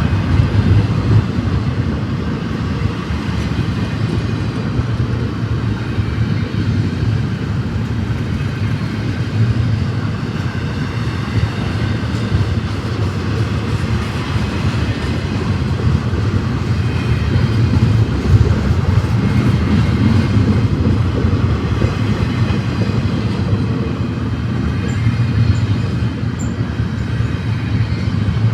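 Freight train rolling past: a steady low rumble with a hiss of wheels on rail, swelling a little around the middle.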